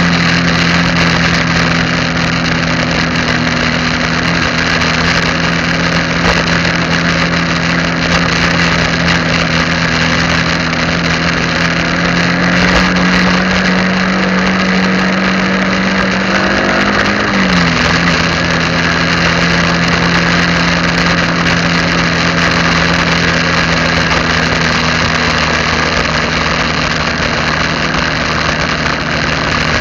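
Engine of a vehicle driving along a road, running at a steady pitch under loud wind and road noise. About halfway through, its pitch drops once and settles slightly lower.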